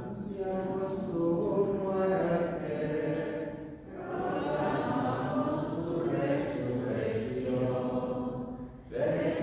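Slow, chant-like liturgical singing in long held phrases, with short breaks about four seconds in and near the end.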